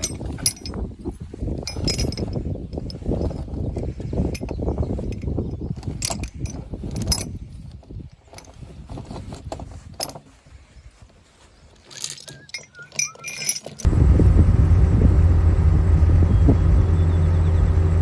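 Heavy steel chain rattling and clinking as it is wrapped and hooked around a log, with scattered sharp clinks. About 14 seconds in, a steady engine hum comes in abruptly and is the loudest sound from then on.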